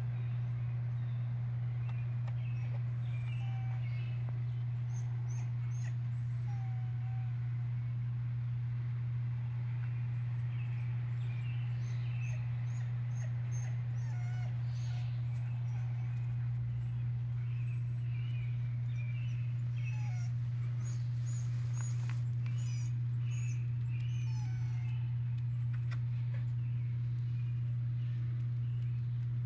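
Outdoor yard ambience: a steady low hum, with faint high bird chirps scattered over it.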